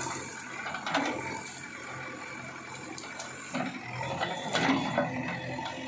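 Diesel engine of an earthmoving machine running steadily, with scattered knocks and crackles about a second in and again around four to five seconds.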